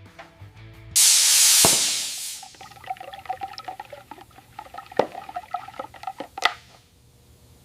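Paint spray gun hissing in one loud burst about a second in, then fading away, as a fine blending coat goes on. Faint clinks and light scraping follow, with two sharp clicks near the end.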